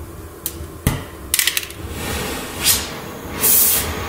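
Metal tool knocks and rattles: a sharp knock about a second in, a quick clatter after it, then two short bursts of hiss near the end.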